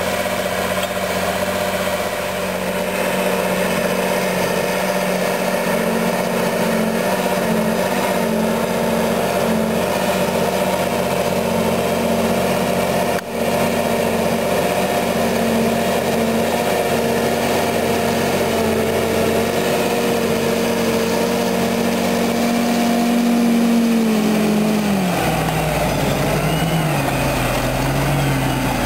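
John Deere 8530 tractor's six-cylinder diesel engine running steadily under load while pulling a subsoiler through the ground. Near the end the engine note slides down and it runs on at lower revs.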